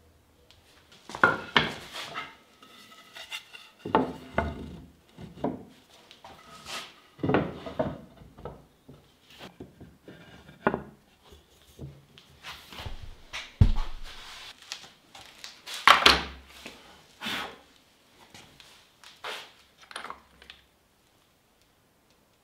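Irregular wooden knocks, clacks and light clinks, with some rubbing, as parts of a solid oak desk are handled and fitted; the knocks stop near the end.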